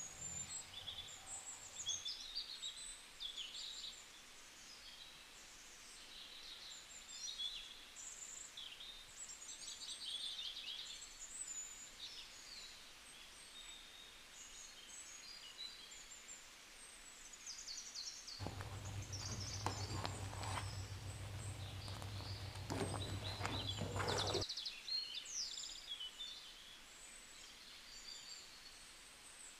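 Small birds chirping and twittering faintly throughout. About two-thirds of the way in, a low hum with clicking and clatter joins for about six seconds, then stops.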